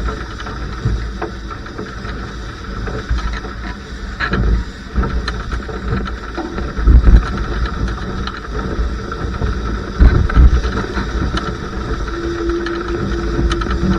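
Wind buffeting the microphone and water rushing past the hull of a Laser 2 sailing dinghy underway in about 17 knots of wind, with strong gusts about seven and ten seconds in. A brief steady hum sounds near the end.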